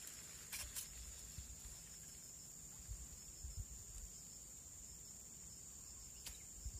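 Insects chirring in one steady, high-pitched drone, with a few sharp clicks about half a second in and again near the end, and light low bumps.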